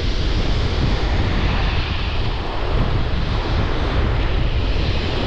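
Strong wind buffeting the microphone in a steady low rumble, with surf breaking on the shore beneath it.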